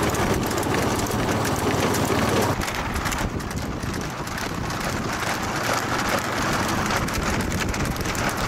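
Wind buffeting the microphone of a vehicle moving fast alongside a trotting bullock cart, over the road noise of that vehicle. The low rumble drops away about two and a half seconds in.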